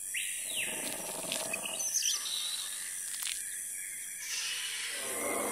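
Sound-designed jungle ambience: bird calls and chirps over a steady high hiss, swelling into a fuller wash of sound a little after four seconds in.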